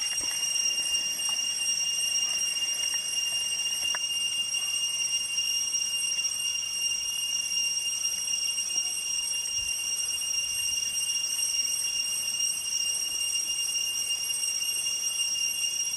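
Cicadas in the trees singing in a steady, unbroken high-pitched whine made of several constant tones, a sound that can pass for electrical buzzing.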